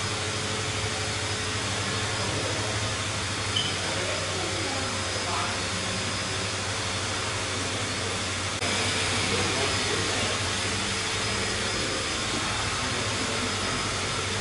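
Steady rushing noise and low hum of an electric blower fan keeping an inflatable balloon figure inflated. It gets suddenly a little louder a bit over halfway through.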